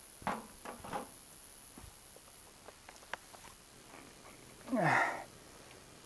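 A man's breathing: two short sniffs or breaths near the start, then about five seconds in a sigh, a half-second breathy exhale falling in pitch and louder than anything else. A few faint clicks fall between them.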